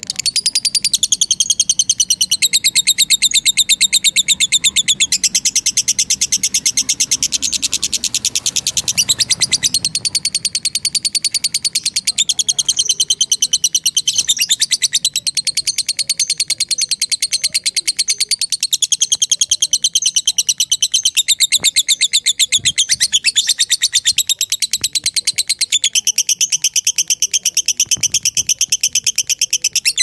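Masked lovebird (green personata) singing a long, unbroken, very rapid chattering trill, the drawn-out 'ngekek' song, its pitch shifting every few seconds.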